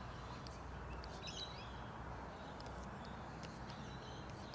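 Faint outdoor ambience: a few small birds chirping, loudest about a second in, over a low steady rumble.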